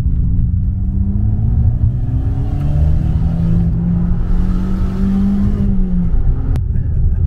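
Fiat Panda 4x4 with a swapped Abarth T-Jet turbo engine accelerating hard uphill, heard from the cabin over a heavy low rumble: the engine pitch climbs, drops with a gear change about two and a half seconds in, climbs again, then falls away as the throttle comes off near the end.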